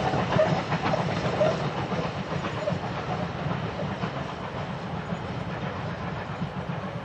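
Ivatt Class 2MT 2-6-2T tank engine 41241 working hard with a train of coaches, its rhythmic exhaust beats fading steadily as it pulls away.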